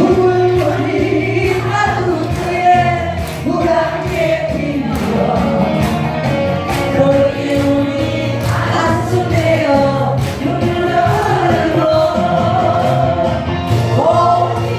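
Korean trot song: singing over a backing track with a steady drum beat and bass line.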